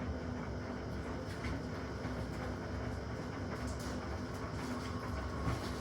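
Washing machine running with a heavy tumble-dryer motor loaded in its drum: a steady low rumble with a faint hum.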